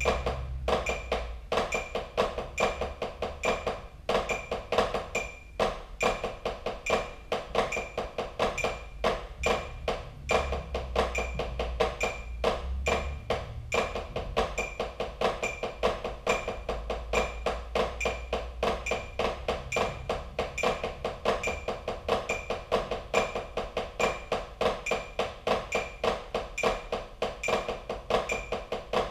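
Drumsticks playing continuous, even strokes on a drum practice pad, over a steady high click about twice a second.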